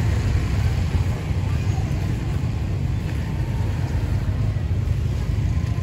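Steady low engine rumble of a motor vehicle close by, likely a motorbike, over general market street noise.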